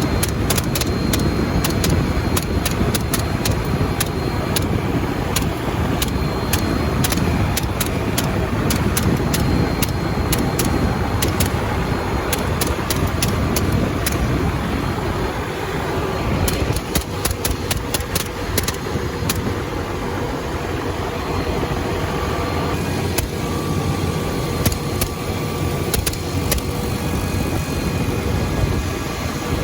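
A helicopter running, its engine and rotor noise loud and steady, with many sharp clicks scattered through it.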